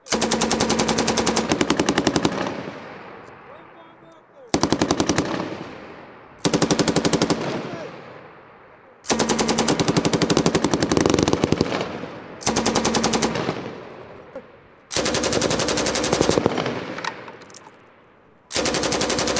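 M240 7.62 mm belt-fed machine gun firing seven bursts of rapid shots. Each burst lasts one to three seconds and trails off in an echo before the next.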